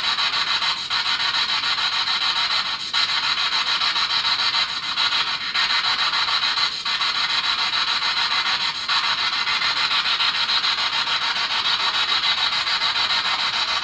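Steady electronic static hiss, strongest in the upper range, played as a noise backdrop for an EVP recording session. A few faint brief breaks come every second or two.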